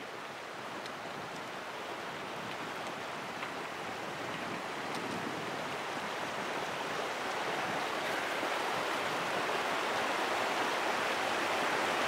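Small mountain stream running over rocks, a steady rushing of water that grows gradually louder.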